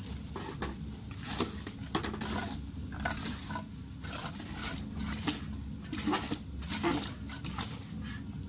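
Irregular light knocks and clinks, a few scattered through each second, over a low steady background hum.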